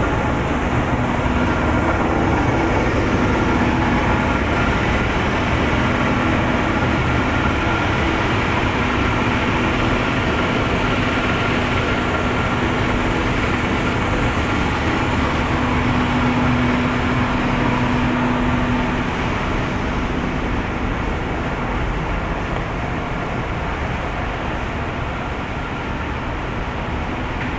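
Tea-factory processing machinery running: a loud, steady mechanical din with a constant droning hum, easing slightly in the last third.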